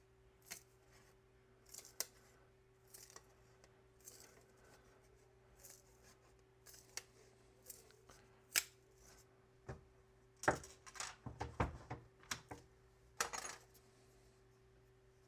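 Sharp clicks and snaps of the breakaway production tabs being cut off a printed circuit board, scattered about once a second at first, then a denser, louder run of snaps about ten to thirteen seconds in.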